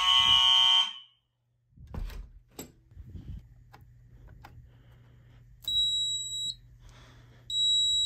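Fire alarm horns sounding together, cutting off abruptly a little under a second in as the Fire-Lite fire alarm control panel is reset. Then a few clicks over a low steady hum, and two short high-pitched beeps from the panel's buzzer as its buttons are pressed.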